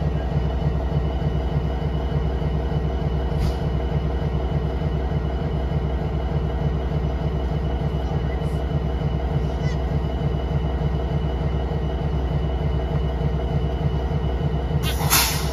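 EMD SD60E diesel-electric locomotive, a two-stroke 16-cylinder 710 engine, idling steadily while stopped at close range. A brief hiss comes near the end.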